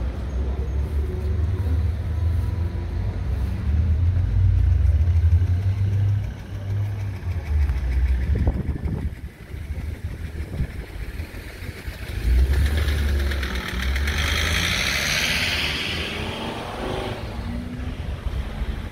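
Street traffic: the low rumble of cars driving by, with one vehicle passing close, rising and then fading, about two-thirds of the way through.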